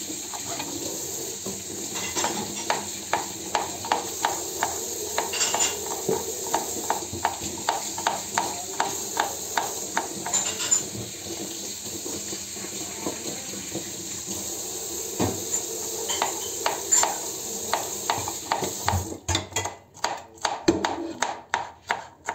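Knife chopping vegetables on a cutting board in regular strokes, about two a second, over a steady background hiss. Near the end the hiss stops and the chopping quickens.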